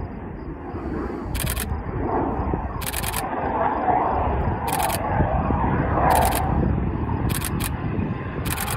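EA-18G Growler's twin jet engines running as the jet comes in on a landing approach, a rumbling jet noise that grows louder toward the middle. Several short bursts of a camera shutter firing come through over it, about one every second or so.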